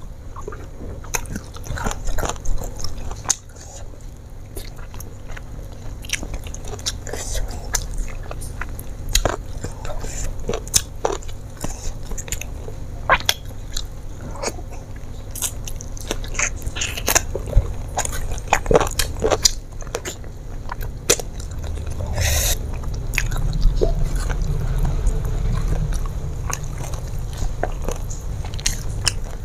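A person chewing and biting fried chicken eaten by hand, close to the microphone, with many short wet smacks and crunchy clicks. A louder short hiss-like sound comes about three-quarters of the way in.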